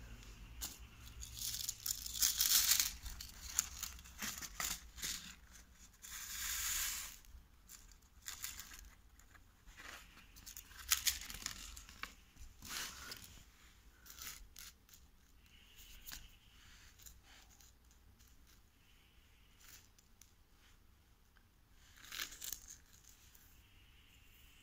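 A paper seed packet being torn open and handled: several bursts of tearing and crinkling, with scattered light clicks between them.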